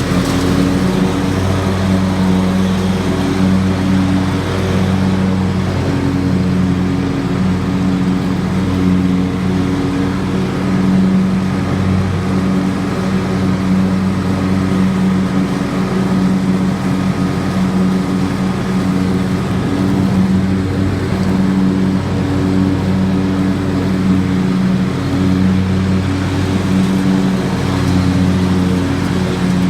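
Riding lawn mower engine running steadily, a loud hum whose pitch and strength shift slightly now and then.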